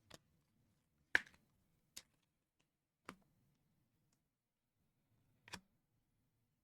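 Five sharp clicks and taps from trading cards being handled, the loudest about a second in.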